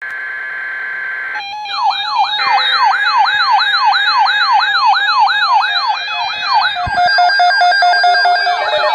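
Electronic siren yelping: a pitch sweeping rapidly up and down about three times a second, layered over several steady tones. It starts after about a second and a half of steady tones alone and becomes less distinct near the end.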